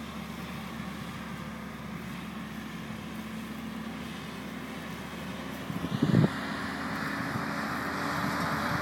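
Hive-carrying truck's engine running as it drives slowly across the field, its pitch creeping up. A brief loud buffet hits the microphone about six seconds in.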